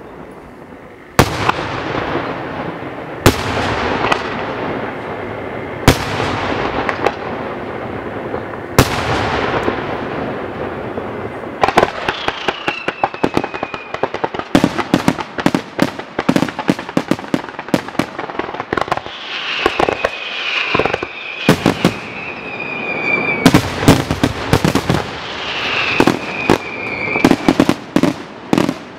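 Aerial firework shells bursting: four single loud booms a few seconds apart, each trailing a long rolling echo. From about twelve seconds in, a dense barrage of rapid bangs and crackling follows, with several high tones sliding down in pitch.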